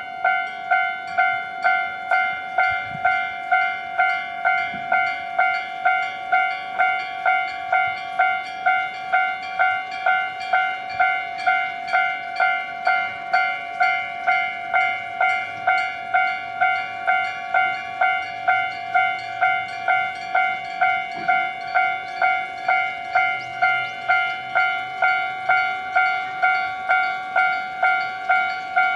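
Japanese railway level-crossing warning bell ringing steadily, an even 'kan-kan' of about two strikes a second, signalling that a train is approaching and the crossing is closing.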